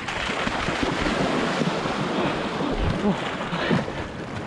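Lake water splashing and sloshing right at the microphone as a swimmer swims close by, with a steady rushing noise and short gurgles.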